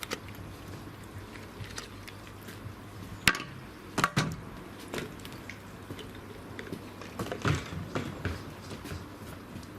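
Water dripping and splashing, with scattered sharp clicks and knocks; the loudest come a little over three seconds in, twice around four seconds, and again about seven and a half seconds in.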